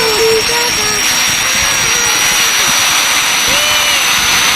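A loud, steady rushing roar from a machine or engine, with a thin high whine above it that slowly rises in pitch.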